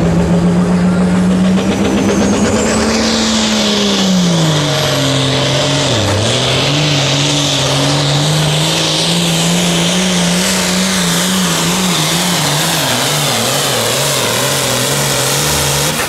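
Oliver 2150 hot farm pulling tractor's diesel engine at full throttle, dragging a weight-transfer sled. The engine note climbs a little in the first few seconds, then drops and bogs about six seconds in as the sled bears down, and wavers for the rest of the pull.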